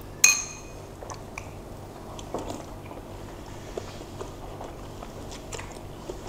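Quiet chewing and eating sounds of bakso meatballs and noodles close to the mouth, with small clicks of cutlery. About a quarter second in, a metal spoon clinks once against a ceramic bowl with a brief ring.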